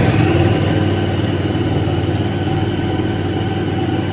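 Aston Martin AMB 001's turbocharged 997 cc 88° V-twin four-stroke engine, freshly started and settling into a steady idle.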